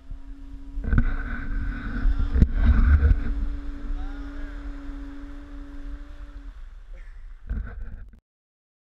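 A conch shell blown in one long, steady note that ends about six and a half seconds in, over a low rumble with a couple of knocks. Surf washes in briefly near the end before the sound cuts off.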